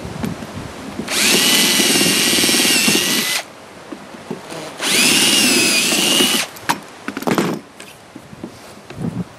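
Cordless drill running in two bursts of about two seconds each, its motor whine rising as it spins up and then holding steady, while drilling into the end of a plastic feeder trough. A few faint clicks follow near the end.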